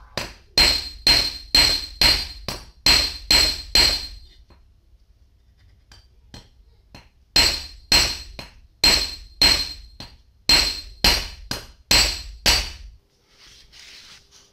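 Hammer striking a steel rod on a steel block to shape a tire lever. A run of about ten ringing metal blows, roughly two a second, stops for about three seconds, and then a second run of about a dozen blows follows.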